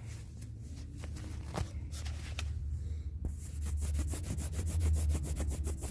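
Rubbing on the camera lens close to the microphone: a few scattered rubs, then a fast run of wiping strokes, about eight a second, from about halfway through. A steady low hum sits underneath.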